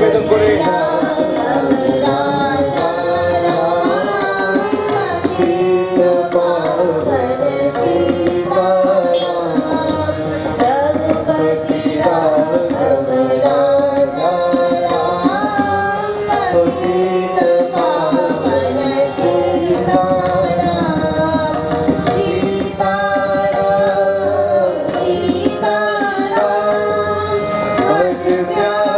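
A man and a woman singing a song live into microphones, with a steady drum accompaniment.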